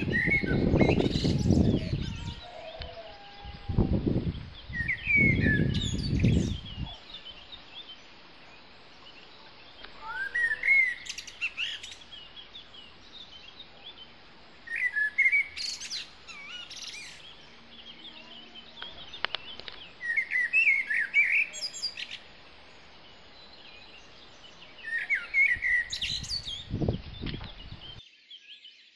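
Songbirds singing short, warbling chirp phrases that recur about every five seconds. Loud low rumbling, like wind or handling noise, comes and goes in the first several seconds and again near the end.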